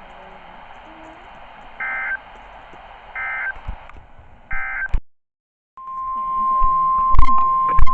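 Three short bursts of warbling digital data tones, the EAS/SAME end-of-message signal that closes a weather-radio warning. After a brief dropout, NOAA Weather Radio's steady 1050 Hz warning alarm tone comes on loud, with two sharp clicks about half a second apart near the end.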